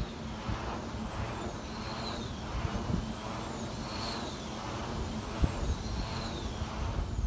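Vestas V90 wind turbine's rotor blades swishing as they turn: a rhythmic whoosh that swells and fades about every two seconds, with a faint higher tone rising and falling in step.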